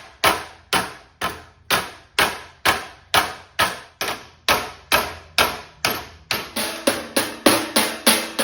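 Sheet steel flange being beaten over by hand with a Garland No. 4 mallet, a sharp strike with a short ring about twice a second, quickening to about three a second near the end.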